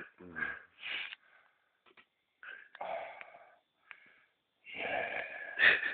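A sleeping man snoring with wheezy breaths: about four separate noisy breaths with short silent gaps between them, and a sharp click near the end.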